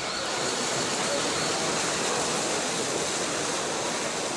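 Steady rushing and splashing of pool water as underwater hockey players kick off from the wall and swim down after the puck.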